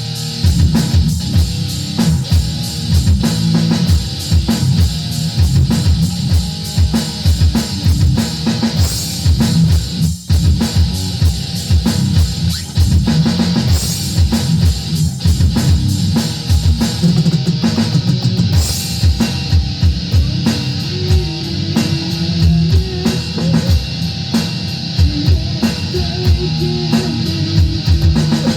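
Rock music played on electric guitar over a drum kit, with a fast, steady drum beat and a brief break about ten seconds in.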